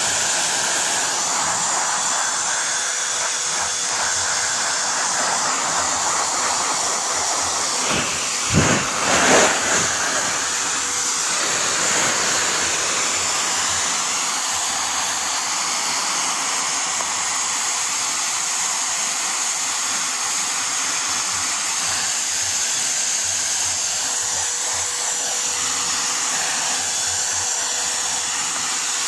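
Small vacuum cleaner modified into a pet blower, its exhaust blowing air through a hose and nozzle: a steady rush of air with a faint even hum. About eight seconds in it briefly gets louder twice.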